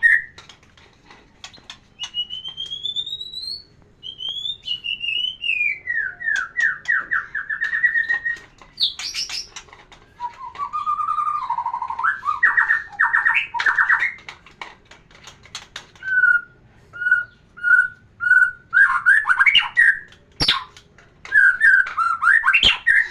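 White-rumped shama (murai batu) singing a varied song of rising and falling whistled phrases, fast trills and a run of short repeated whistles, with pauses between phrases. A sharp click sounds near the end.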